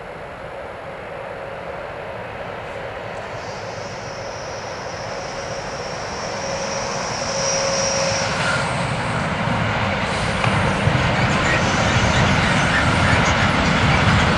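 Electric-hauled freight train approaching and passing: a steady rumble of wheels on rail that grows louder throughout, with a high whine as the locomotive nears. Once the locomotive is past, the wagons' rolling noise fills the rest, deeper and loudest near the end.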